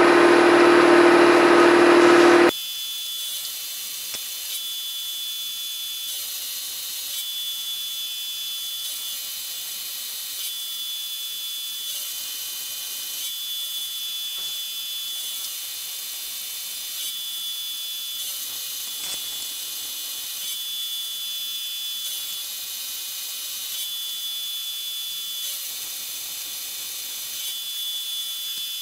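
End mill in a milling machine cutting a metal block: a loud, steady cutting noise with a strong held tone, which about two and a half seconds in drops abruptly to a quieter, steady high whine with a faint pulse repeating about every two seconds.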